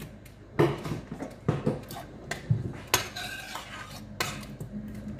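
Kitchenware clinking and knocking against a stainless steel pan: a string of short, sharp strikes at irregular intervals while seasoning is added.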